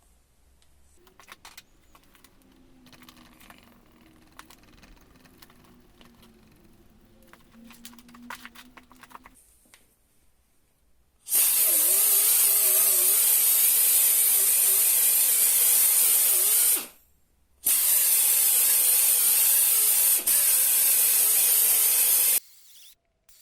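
Spray hissing in two long, even bursts of about five seconds each, with a short pause between, in a headlight restoration job. Before it come faint clicks and handling noises.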